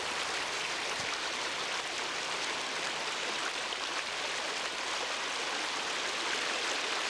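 Running water: a stream flowing with a steady, even rush.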